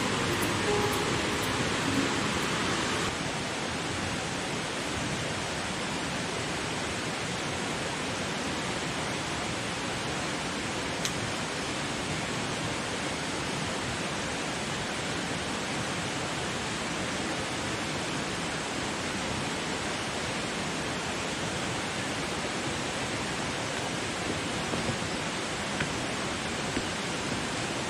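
A river flowing, an even, steady rush of water.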